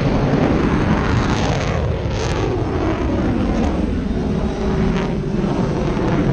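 Aircraft flying past overhead: loud engine noise whose pitch falls as it goes by.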